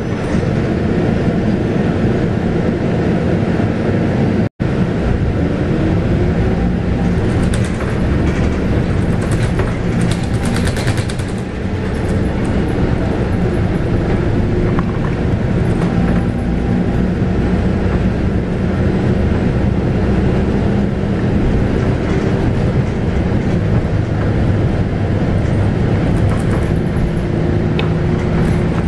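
Scania K280UB bus heard from inside the cabin: its 9.3-litre five-cylinder Scania DC9 diesel running steadily, with road rumble and its pitch drifting up and down as the bus drives. The sound drops out for a split second about four and a half seconds in.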